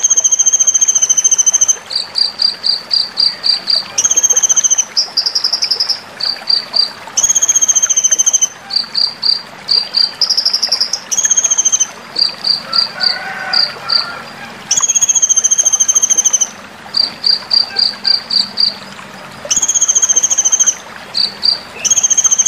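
Van Hasselt's sunbird (kolibri ninja) singing: a high, buzzing trill about one to two seconds long alternating with runs of quick, sharp high notes, about five a second, repeated over and over.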